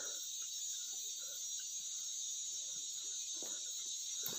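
A steady, high-pitched insect chorus, with a few faint soft knocks and scuffles near the end.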